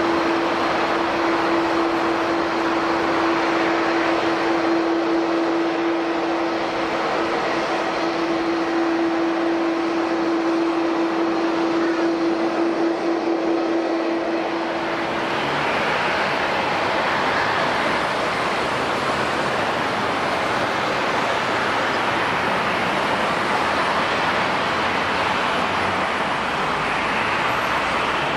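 Airliner jet engines running with a steady, even noise and a constant hum that stops about halfway through, after which the engine noise shifts slightly.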